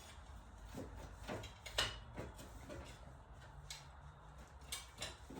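A few faint, scattered clicks and taps of hand tools working at a spark plug deep in the engine bay, the loudest about two seconds in.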